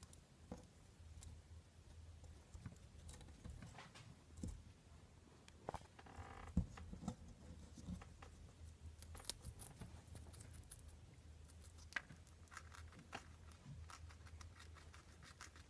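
Hairless guinea pig nibbling at a figurine and pawing a small enamel bucket: faint scattered clicks and taps, with a short rustle and a sharp click about halfway through, over a low steady hum.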